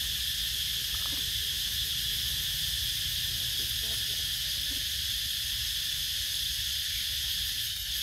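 Steady high-pitched insect chorus, unbroken, over a low steady rumble.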